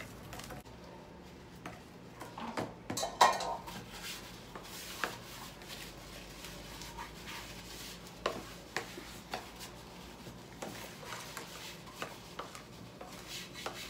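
A spoon stirring carrot-cake batter by hand in a plastic mixing bowl, with irregular clacks and scrapes of the spoon against the bowl, the loudest knock about three seconds in.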